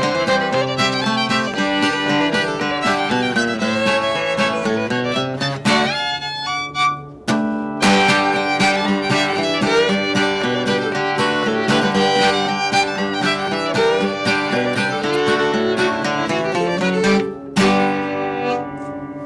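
Bluegrass tune on fiddle and acoustic guitar, with a short break about seven seconds in. It closes with a final chord near the end, left to ring and fade.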